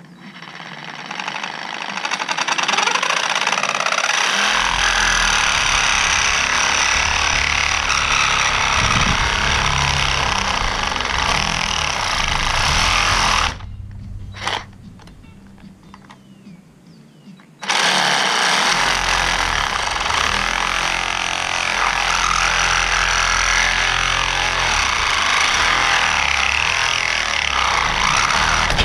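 Reciprocating saw (Sawzall) cutting slots into an RV power awning's roller tube: two long cuts with a pause of about four seconds between them.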